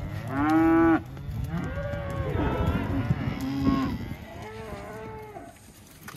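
Young heifers mooing: one loud, close moo lasting about a second at the start, then several fainter moos from others in the herd, overlapping and dying away toward the end.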